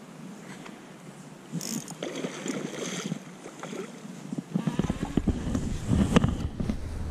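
Splashing water and handling noise as an angler plays a hooked steelhead on a spinning rod and reel, with irregular knocks and rustles. About two-thirds of the way in a low wind rumble on the microphone joins, and the knocks get louder.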